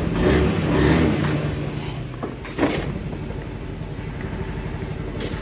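Honda Beat FI scooter's single-cylinder four-stroke engine idling steadily just after starting, after its oil-fouled CVT has been serviced and new seals fitted. It is louder for about the first second, and there is a short knock about two and a half seconds in.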